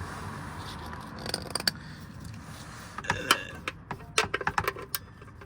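Metal clicks and clinks of a ratchet and socket working the oil drain plug back into a Mini Cooper's oil pan, irregular at first and coming thicker and faster in the second half.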